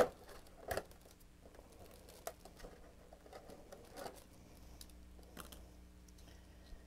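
Fingers prying open a cardboard compartment door on a toy advent calendar and taking out a small plastic-wrapped item: a sharp click at the start, then scattered soft clicks, scratches and crinkles.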